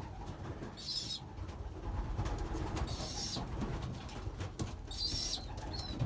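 Racing pigeons cooing in a loft, a low murmur throughout, with three short high-pitched sounds about one, three and five seconds in.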